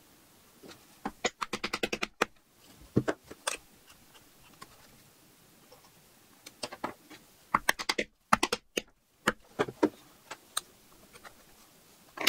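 A small metal hand tool clicking and tapping against leather and the hard work board, in two quick flurries of about eight clicks a second, with single clicks between.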